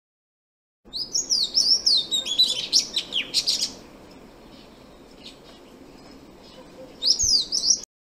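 Oriental magpie-robin singing: a rapid run of varied whistled notes sliding up and down, loud for about three seconds. Fainter notes follow, then another loud burst near the end before the song cuts off.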